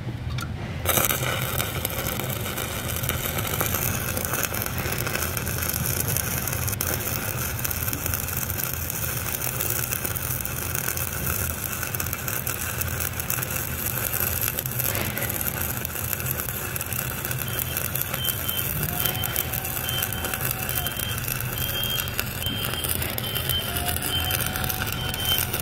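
Shielded metal arc (stick) welding with a Lincoln Excalibur 7018 1/8-inch electrode on an overhead fillet weld: the arc strikes about a second in and then burns with a steady noise.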